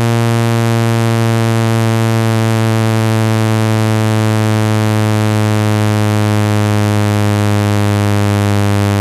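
Water-eject speaker-cleaning tone: a steady, loud, low buzzing tone, rich in overtones and unchanging, meant to vibrate trapped water out of a phone speaker grill.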